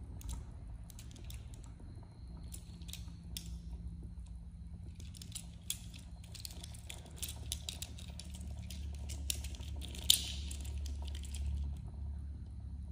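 Small plastic Transformers Crash Combiners figure being folded and twisted by hand: scattered clicks and snaps of its plastic joints and panels, with one sharper snap about ten seconds in.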